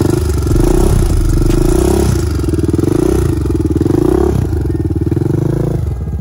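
Honda TRX400EX quad's single-cylinder four-stroke engine, revved up and eased off again and again, about once a second, as it is ridden in circles.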